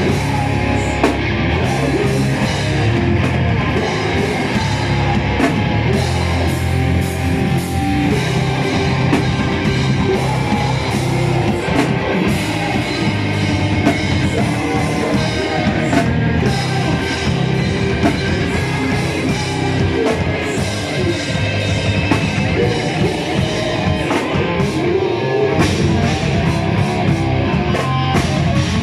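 A live band plays loud, dense heavy rock, with electric guitars, bass guitar and a drum kit, and no letup.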